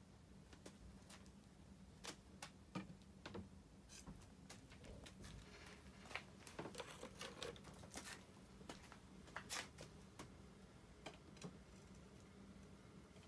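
Near silence with scattered faint clicks and light taps, most of them between about two and ten seconds in, over a faint steady low hum.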